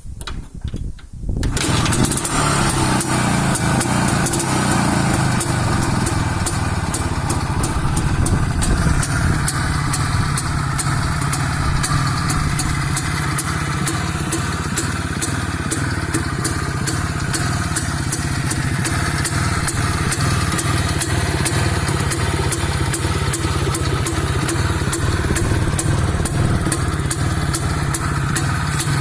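Izh Planeta 3 motorcycle's single-cylinder two-stroke engine, freshly serviced, starting: a few short stuttering bursts, then it catches about a second and a half in and runs steadily.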